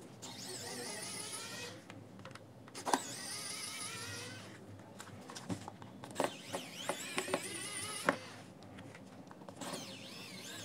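Cordless electric precision screwdriver backing out small screws in four short runs of wavering motor whine, with a few sharp clicks between the runs.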